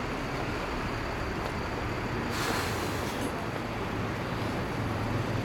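Street traffic noise: a steady low engine rumble under a rushing haze, with a brief swell of rushing noise about two and a half seconds in.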